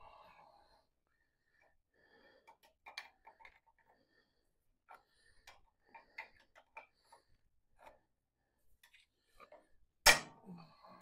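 Scattered light metal clicks and clinks of hand tools and cultivator disc hardware being fitted to a Farmall 140 tractor, with one loud metal clank about ten seconds in.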